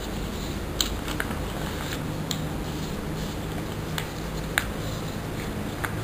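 A large sheet of paper being handled, folded and creased by hand: soft rustling with about six short, sharp crackles scattered through, over a steady low hum.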